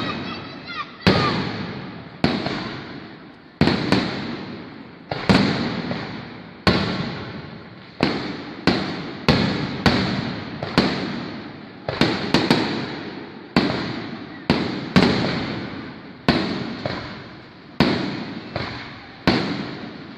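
Aerial fireworks shells bursting in a rapid, irregular series of loud bangs, about one a second with some in quick pairs. Each bang trails off in a long rolling echo.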